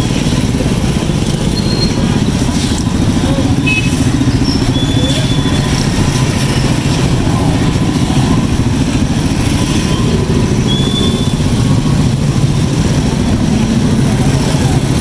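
Motorcycle engines running in steady street traffic, a continuous low rumble, with a few short high-pitched chirps over it.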